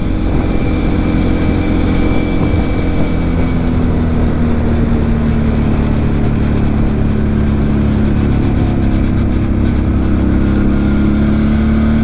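Kawasaki KFX 700 V-Force quad's V-twin engine running steadily at cruising speed. Its note eases slightly in the middle and picks up a little again near the end.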